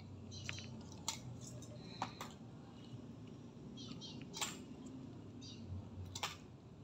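Small pieces of cut CD clicking and clinking on a tabletop as they are picked up and set down, about five sharp clicks spread out with fainter clinks between.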